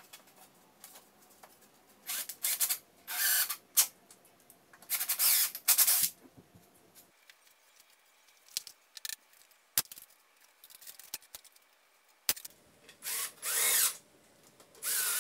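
Cordless drill driving screws into a plywood cabinet box in short bursts of about half a second to a second each, with a few sharp knocks between the bursts.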